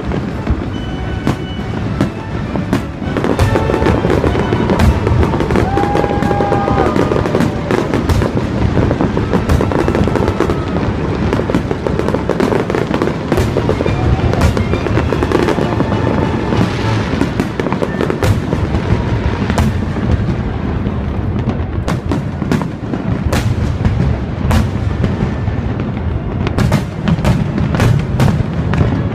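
Fireworks display: a continuous barrage of bangs and crackling bursts over a steady low rumble.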